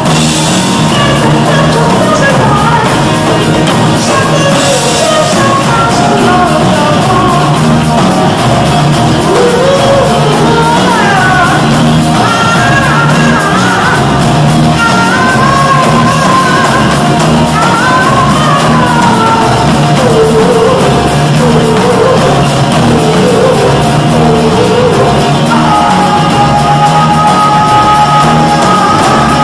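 Live rock band playing: a singer over acoustic guitar, electric bass and a drum kit, with a steady beat. A long held note comes in near the end.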